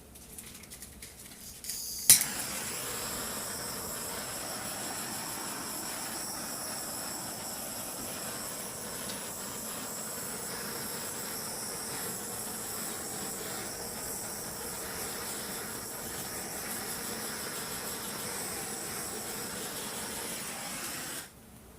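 A heat gun clicks on about two seconds in and runs steadily, a hiss with a high whine, then cuts off suddenly near the end.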